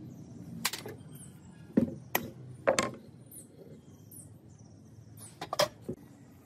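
Sharp knocks and clicks of tools and engine parts being handled, about six in all: four in the first three seconds and a quick pair later on.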